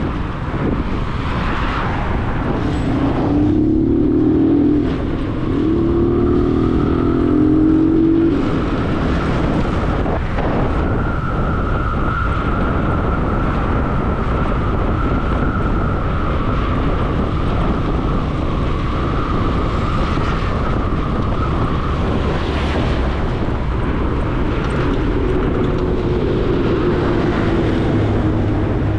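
Motor vehicle engine running under steady road noise; twice in the first several seconds its note climbs as it speeds up, and a steady whine holds through the middle.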